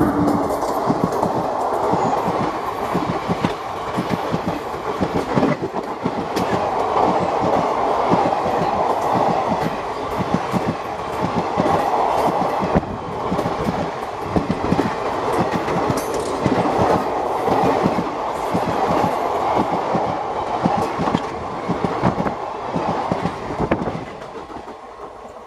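Indian Railways express passenger coaches rolling past at close range, their wheels clattering rhythmically over the rail joints under a steady rumble. The sound falls away near the end as the last coach goes by.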